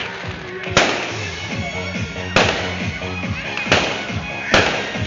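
Aerial fireworks exploding: four sharp bangs about a second apart, each followed by a brief rumbling tail, over music playing.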